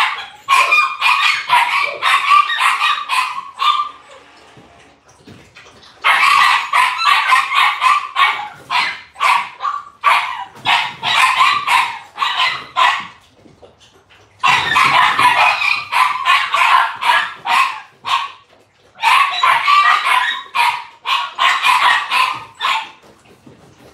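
Dog barking in rapid runs of barks, about three a second, in four bouts separated by short pauses.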